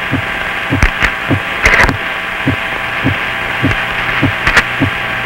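Open air-to-ground radio channel with no one talking: a steady hum with a low thud repeating about every 0.6 seconds, and a few clicks of static in the first two seconds.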